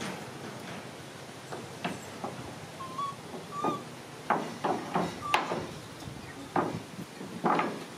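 Irregular hollow knocks and clatter of a plastic toy dump truck on a wooden tabletop as it is pushed and as the baby macaque riding in its bed shifts about. The knocks come in a cluster from about halfway through, and two or three short high chirps sound early on.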